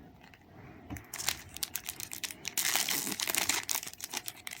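Plastic wrapper of a Match Attax trading-card packet crinkling and tearing as it is opened, a dense run of crackles starting about a second in.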